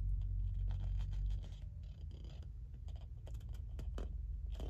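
Faint rustling and scattered light ticks of a sheet of scrapbook paper being shifted in the hands, over a low steady hum.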